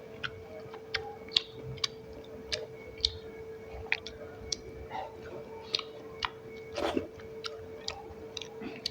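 Close-up chewing and mouth smacking: a string of short wet clicks, with a louder smack about seven seconds in. A steady hum runs underneath.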